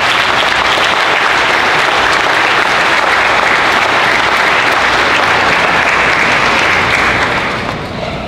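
Audience applauding, steady and loud, dying away near the end.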